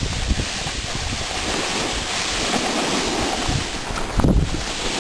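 Wind buffeting the camera's microphone: a steady rushing noise with low rumbling, and a louder bump about four seconds in.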